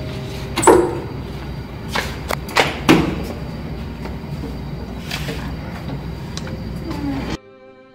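A door being opened, then a few knocks and thuds of someone moving about and handling things, over steady room noise. A sheet of paper is picked up. Near the end the room sound cuts off suddenly, leaving soft music.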